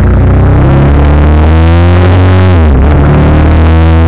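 Motorcycle engine accelerating hard through the gears: the pitch climbs, drops at an upshift about two and a half seconds in, then climbs again.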